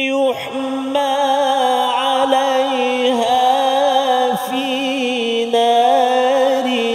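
Melodic Quran recitation by a single reciter in tajwid style: long held notes with wavering, ornamented turns, broken by a few short pauses.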